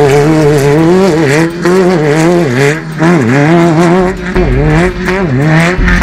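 Off-road desert race buggy's engine revving hard, its pitch wavering up and down without a break and dropping sharply every second or two as the throttle lifts and comes back on.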